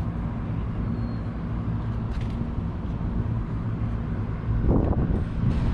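Steady low rumble of a motor running, growing louder for a moment near the end.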